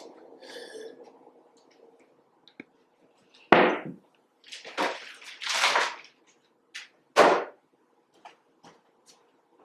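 Several sharp knocks and thuds about a second apart, the loudest a little over three seconds in and again about seven seconds in, as household objects such as a mug are handled and set down on a table.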